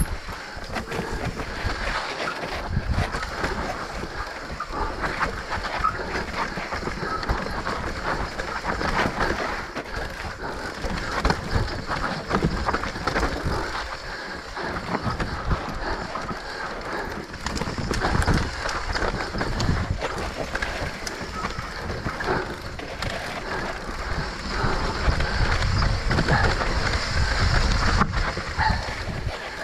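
Mountain bike descending a dry dirt trail. The tyres roll over dirt, leaf litter and bumps, and the bike rattles with many small knocks and clicks over the rough ground.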